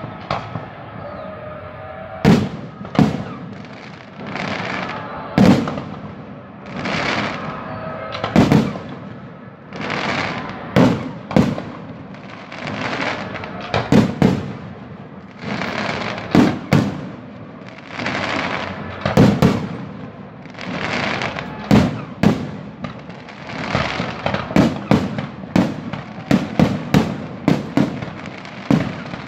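Aerial fireworks display: shells bursting with sharp bangs every second or two, each followed by a hissing, crackling tail. The bursts start about two seconds in and come faster and closer together near the end.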